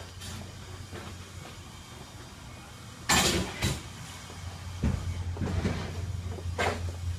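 Street traffic: a steady low engine hum, with a loud hissing burst about three seconds in and a shorter one near the end.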